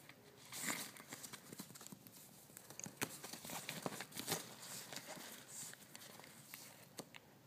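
Irregular taps, scratches and rustles on the nylon mesh and fabric of a soft-sided pet pen, as a small dog paws and plays at a hand through it.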